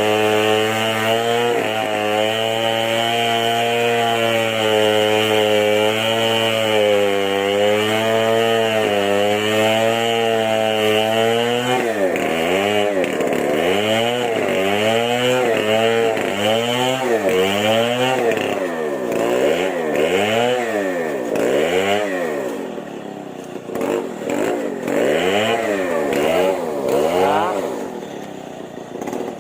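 Chainsaw engine held at high revs, its pitch wavering slightly. About twelve seconds in it starts being revved up and down in quick blips, roughly once a second. Near the end the revs come down and the sound gets quieter.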